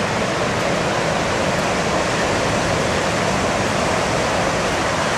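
Ocean surf breaking on a beach: a continuous, even rush of wave noise.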